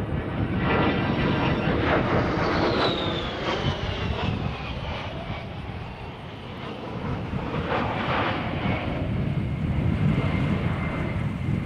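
A-10 Thunderbolt II's twin TF34 turbofan engines as the jet flies past: a loud, steady engine rush with a high whine that falls in pitch early on. The engine noise dips around the middle, then builds again.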